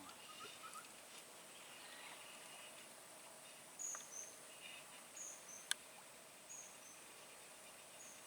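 Faint insect and bird ambience. From about four seconds in, a bird repeats a short, high two-note chirp roughly every second and a half over a steady thin insect drone, and there is a single sharp click near six seconds.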